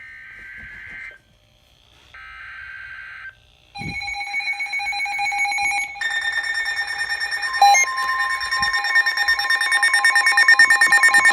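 Emergency Alert System tones: two short screeching data bursts of the alert header, then several electronic alert tones overlapping and pulsing rapidly. A steady alert tone joins them about eight seconds in.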